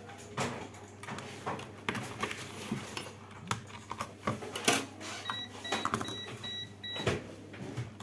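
Clicks and knocks of cables and connectors being handled and unplugged from a desktop motherboard on a workbench. A little past the middle, about five short, evenly spaced high electronic beeps sound.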